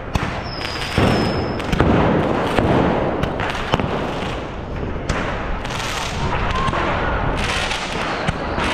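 Firecrackers and fireworks going off in a street: many sharp bangs and crackles over a continuous noisy rush, loudest from about one to two seconds in, with a brief high whistle near the start.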